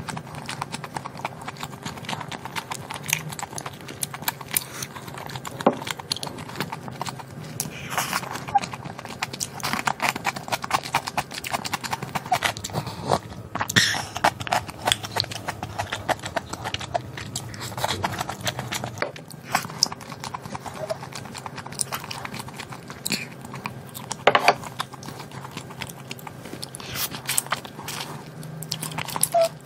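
Close-miked eating sounds: chewing and lip-smacking on pork-bone soup meat and greens, a steady stream of wet mouth clicks with a few louder smacks.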